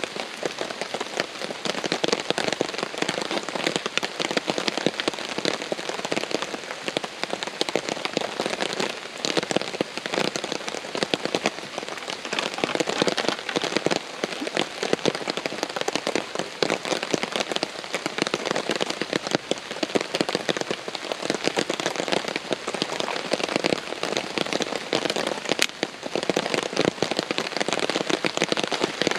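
Heavy rain falling steadily, countless drops striking a tarp shelter.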